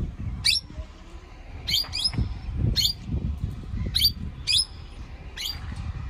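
Plum-headed parakeet calling in flight: a series of about seven short, shrill calls, each falling in pitch, spaced roughly half a second to a second apart.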